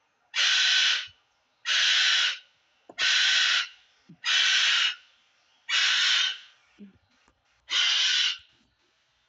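Pet bird screaming: six harsh, evenly spaced screams, each a little over half a second long, about one every second and a quarter. The owner puts the screaming down to her own cries of pain.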